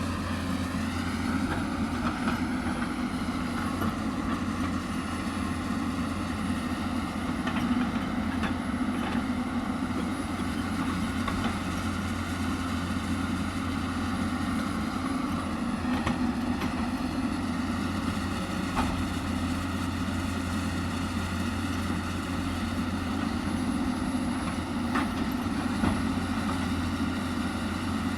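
Hyundai 220 excavator's diesel engine revving up over the first couple of seconds, then running steadily, with a few faint knocks now and then.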